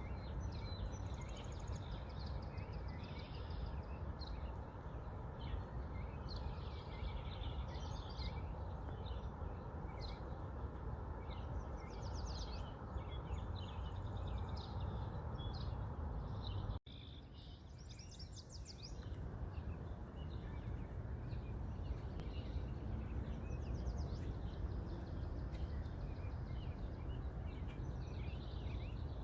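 Many small birds chirping and trilling over a steady low rumble. About two-thirds of the way through, the sound cuts off abruptly and comes back quieter for a couple of seconds.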